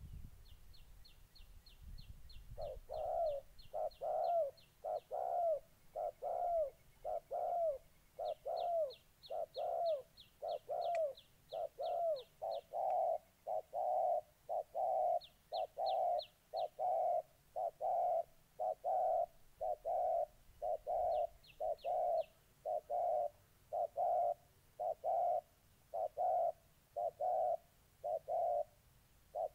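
Spotted doves cooing in a quick, steady string of short coos, about one and a half a second, the bowing display coo of a dove squaring up to a rival. Short runs of rapid high chip notes from another bird come and go over the top.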